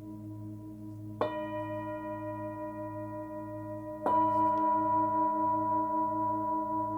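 A 26 cm forged Nepalese singing bowl with a 107 Hz fundamental, struck twice while still ringing. The second strike is the louder. Its low hum wavers steadily under the higher ringing tones.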